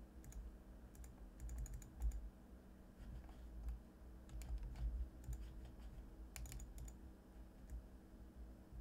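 Keys being pressed on a computer keyboard: scattered clusters of quick clicks over a faint steady low hum.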